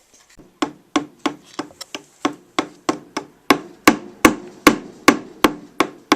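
Repeated hammer blows, about three a second, driving a small juniper perch into a hollow juniper-log birdhouse. The blows get harder about halfway through.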